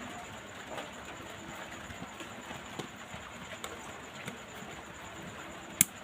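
Light clicks and taps of small tools and plastic parts on a smartphone being taken apart, with one sharp click near the end, over a steady background hiss.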